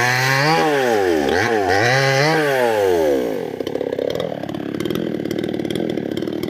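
Chainsaw cutting johar hardwood, its engine pitch dipping and rising several times under load, then dropping to a low idle about three seconds in.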